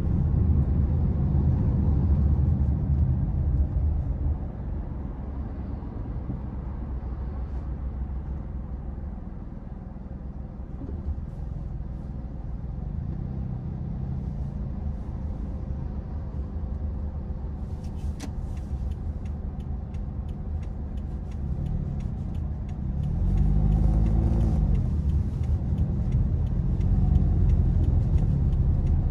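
Car cabin noise: a steady low rumble of engine and tyres that eases off after about four seconds as the car slows in traffic. About three quarters of the way through it grows louder again, and the engine note rises and falls as the car picks up speed.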